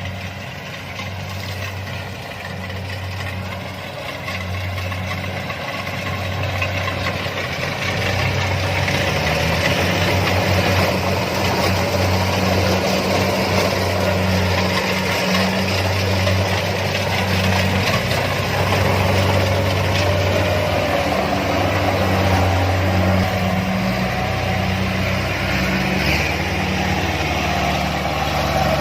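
Kubota DC-70 combine harvester running steadily with its diesel engine and machinery under way, growing louder about eight seconds in.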